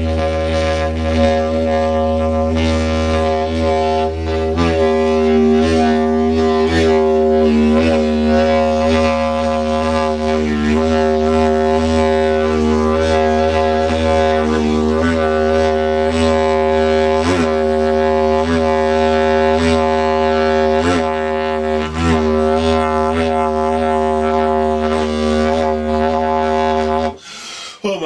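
A length of fire-rated electrical ducting blown as a didgeridoo: a steady low drone with shifting overtones above it and regular rhythmic pulses. It stops about a second before the end.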